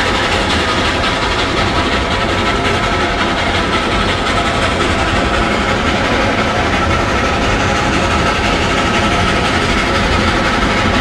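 Steady running noise of a Shay-hauled train of open passenger cars, heard from aboard: wheels rolling on the rails with a steady rumble and thin ringing tones over it.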